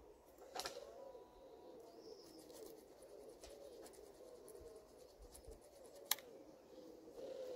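Faint, repeated low cooing of a bird in the background, with two sharp clicks from handling the engine's distributor points, the louder one about six seconds in.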